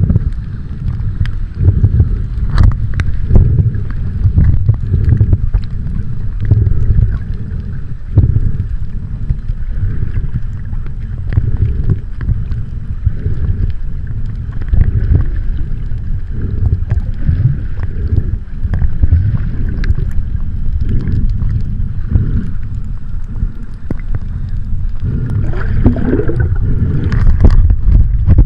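Loud, muffled rumble on the microphone that surges up and down, with scattered clicks and knocks.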